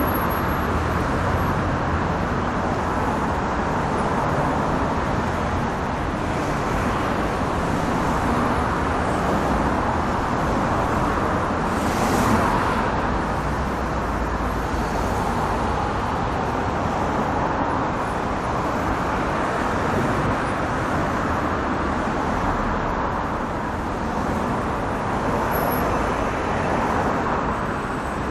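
Heavy city street traffic: a dense, steady wash of car and engine noise and tyre hiss, swelling slightly as vehicles pass, with one brief louder rush of a passing vehicle about twelve seconds in.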